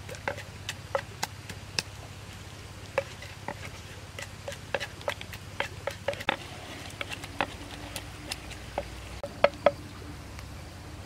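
Wooden pestle pounding and grinding in a mortar: irregular knocks a few times a second, the two loudest near the end.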